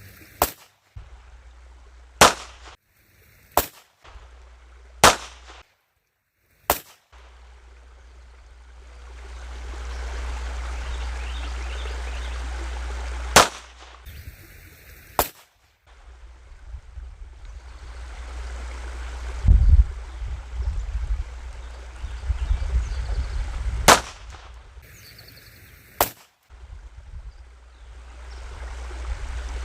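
.22 LR gunshots, fired one at a time at uneven intervals, about eight in all, with a steady low rumble between the shots.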